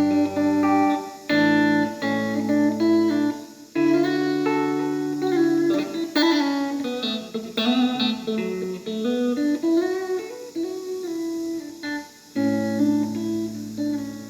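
Squier Classic Vibe '70s Stratocaster electric guitar played on a clean tone. Held chords ring out, then a single-note line steps up and down, and it ends on a sustained chord that fades.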